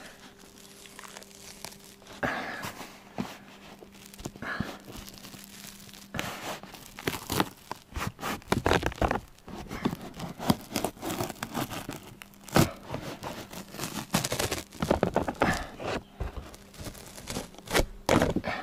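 Birch bark being peeled from a birch trunk in wide sheets: bark tearing and crackling, a few strokes at first, then a dense run of ripping from about six seconds in.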